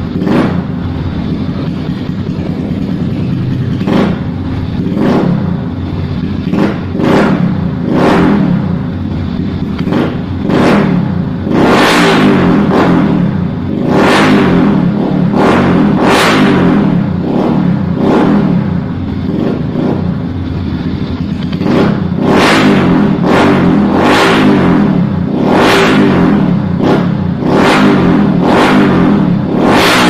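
Yamaha street motorcycle with an aftermarket slip-on exhaust, idling and revved in short throttle blips every second or two. The blips come sparser at first and then faster and louder, sometimes two or three in quick succession. The revving is a sound check of the new silencer.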